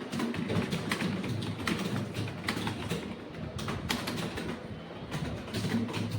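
Computer keyboard being typed on fast, a quick uneven run of keystroke clicks.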